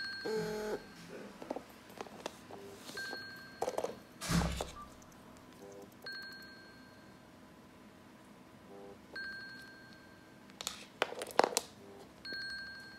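Apple Watch Series 5 alarm ringing: a short, bright chime repeating about every three seconds. Knocks of the watch being handled and set down on a table come in between, the loudest about four seconds in and again around eleven seconds.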